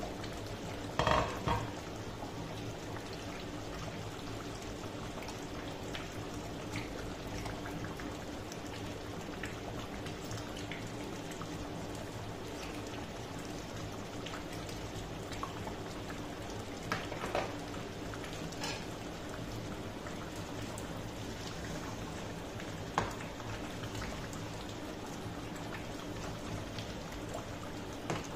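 Egusi soup cooking uncovered in a stainless steel pot on a glass-ceramic hob: a steady bubbling hiss over a low hum. A clatter about a second in as the glass lid comes off, and a few light clicks and knocks later.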